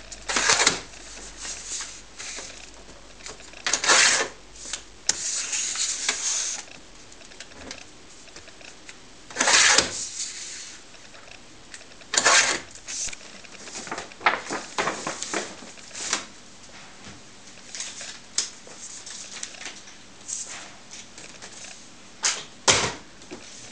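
Paper being trimmed and handled on a sliding paper trimmer: irregular rustles of printed transfer sheets and the cutting head sliding along its rail, with clicks and taps between. Near the end a paper carrier bag is handled with a short loud rustle.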